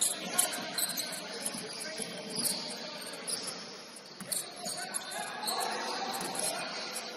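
Basketball game on a hardwood gym court: sneakers squeaking in short high-pitched chirps and the ball being dribbled, over the general hubbub of the hall.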